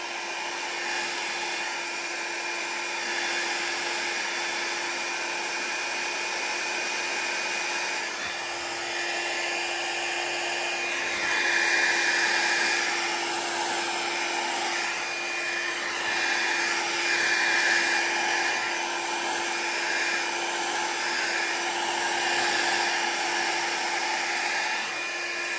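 A Revlon 500-watt styling-brush hair dryer runs continuously, blowing air to push wet alcohol ink across plastic. It is a steady rush of air with a low hum and a faint high whine, swelling a little louder now and then.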